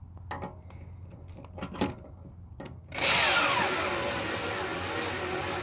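A few handling clicks and knocks, then about three seconds in an old 12-volt Milwaukee cordless drill starts driving a lag bolt into a Doug fir 4x4. Its motor whine falls in pitch as it slows under the load.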